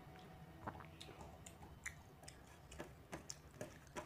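Faint, irregular soft clicks and squelches, two or three a second, as fingers mash watery panta bhat (soaked rice) against a steel plate.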